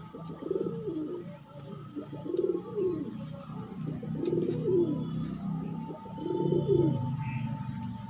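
Domestic pigeons cooing, with a rounded coo repeating about every two seconds over a low continuous murmur of more cooing from the flock.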